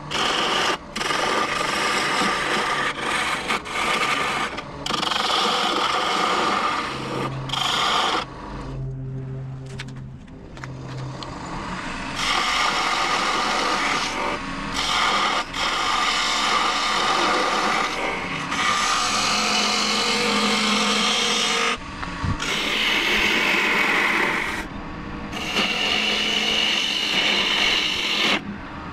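Hand-held turning tool cutting a spinning hardwood furniture leg on a wood lathe: a rough scraping hiss, broken by short gaps as the tool comes off the wood, with a quieter stretch around nine to eleven seconds in.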